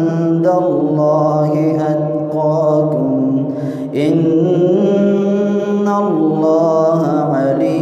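A man's melodic Quran recitation in prayer, chanted into a microphone: long held notes that step and glide in pitch, with a short breath about four seconds in before the next phrase.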